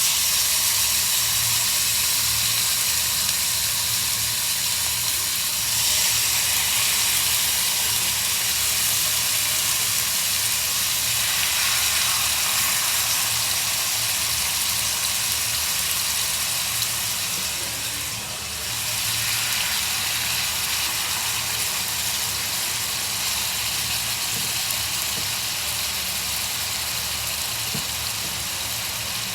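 Seasoned ribeye steaks searing in hot oil in a very hot skillet: a loud, steady sizzle that eases briefly about two-thirds of the way through.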